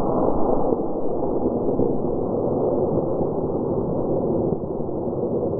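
Steady low rushing rumble of wind buffeting the microphone, fading near the end.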